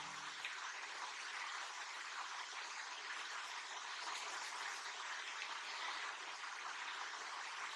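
Graphite pencil shading on drawing paper, a steady scratchy hiss as the cast shadow is filled in.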